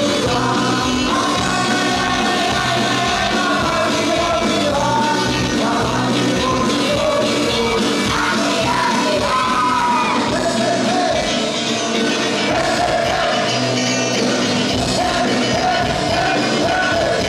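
A live band plays a song loudly through a club PA, with a male lead singer over electric guitars and drums.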